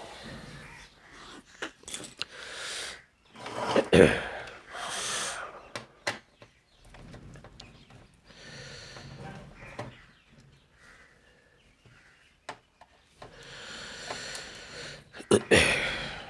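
Handling noise from opening up an LCD TV: irregular clicks, knocks and scraping of the plastic casing and parts being worked loose, loudest about four seconds in and again near the end.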